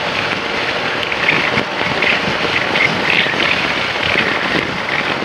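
Steady wind rushing over the microphone during a motorcycle ride, with engine and road noise underneath.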